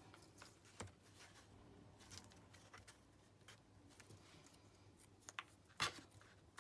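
Near silence broken by a few faint taps and rustles of paper scraps being handled, the sharpest click near the end.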